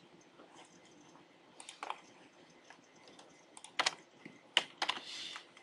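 A few scattered keystrokes on a computer keyboard, short clicks in small clusters with quiet between them.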